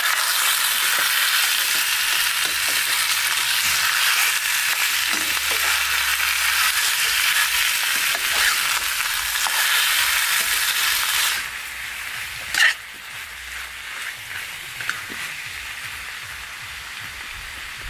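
Marinated chicken pieces sizzling loudly in hot mustard oil in a steel frying pan, stirred with a metal spatula. About eleven seconds in the sizzle drops sharply to a quieter hiss, with a single short knock a second later.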